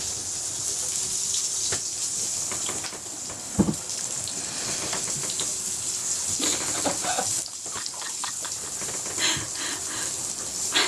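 Steady rushing, hissing noise like moving water, with one short low thump about three and a half seconds in.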